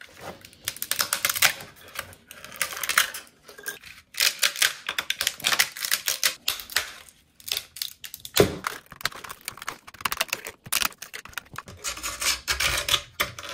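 Tree supports snapping and crackling as they are broken off a black 3D-printed plastic part by hand. The clicks come in quick runs, with short pauses between.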